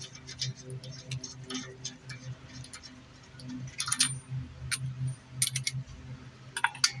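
Scattered light metallic clicks and clinks, in small clusters, from tools and hardware being handled during reassembly of the front strut, over a steady low hum.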